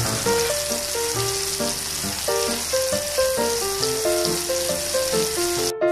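Burger patties sizzling steadily in oil in a non-stick frying pan, with background music of short melodic notes playing over it.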